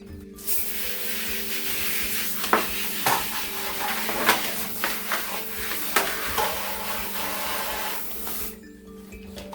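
Running water hissing steadily for about eight seconds, with scattered knocks and clatter of parts under the stream, over soft background music.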